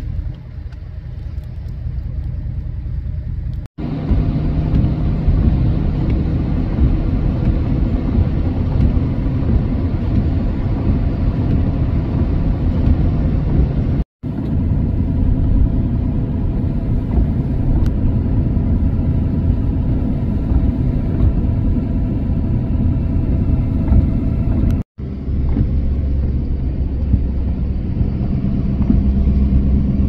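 Steady low rumble of road and engine noise from a vehicle driving on a snow-packed highway, heard from inside the vehicle. It is quieter for the first few seconds and breaks off briefly three times.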